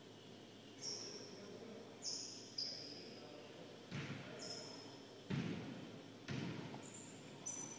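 Basketball bouncing on a hardwood gym floor, three thuds about a second apart starting about four seconds in, with sneakers squeaking sharply on the court about six times.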